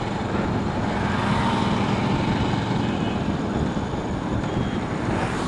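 Motorcycle riding on a highway: the engine running steadily under a constant rush of wind and road noise, with no change in pace.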